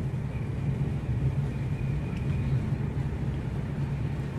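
Steady low rumble of a running vehicle.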